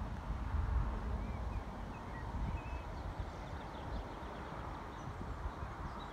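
Small birds chirping faintly over a low, gusty rumble that eases about a second and a half in.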